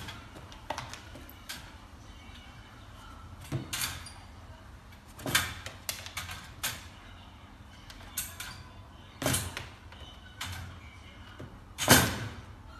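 Wire door of a plastic dog crate knocking and rattling against the crate as it swings shut: a series of scattered light knocks and clatters, the loudest near the end.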